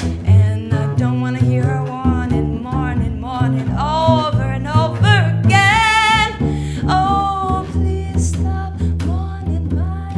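A woman's jazz-blues voice singing over a plucked double bass walking line. Her phrases climb to a long high held note about halfway through, then fall back.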